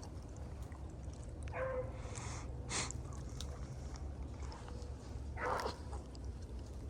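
Beagles baying, with a few short cries about one and a half, three and five and a half seconds in, over a steady low rumble.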